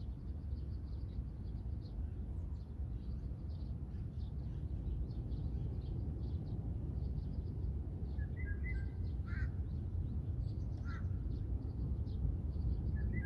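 Dawn chorus of wild birds heard from inside a tent: many short, high chirps run throughout, with a few louder calls in the second half, over a steady low rumble.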